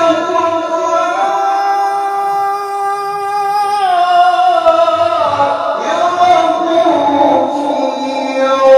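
Melodic Quran recitation (tilawah) by a male qari singing into a microphone in a high register: a long held note, then a drop about four seconds in into a slow, ornamented descending line.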